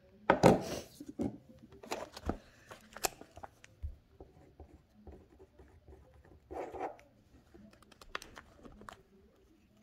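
Scattered rustles and sharp clicks of things being handled close to the microphone, with a louder rustle within the first second and another about two-thirds of the way through.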